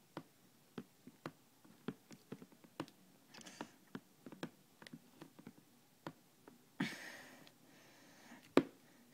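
Irregular clicks and taps of small plastic parts being handled as a misting nozzle is fitted onto quarter-inch plastic tubing, with two short rustles and one sharper knock near the end.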